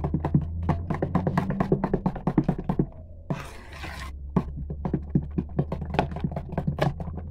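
Fork beating a thick cream batter in an enamel basin, clicking and scraping against the metal several times a second, with a short break about three seconds in.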